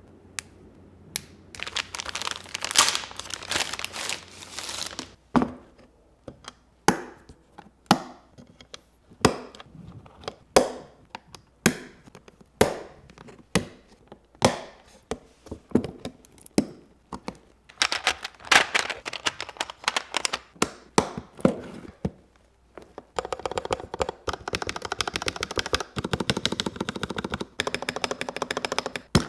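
Plastic and metal clicks and clacks from a custom mechanical keyboard being built or pressed: a dense run of rapid clacks, then single sharp clicks about one or two a second for some fifteen seconds, then a long run of fast clacking.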